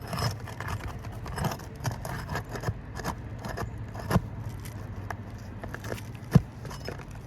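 A tool prying under asphalt shingles: irregular scraping and clicking as the shingle and its sealant strip are worked loose, with a sharp crack about six seconds in.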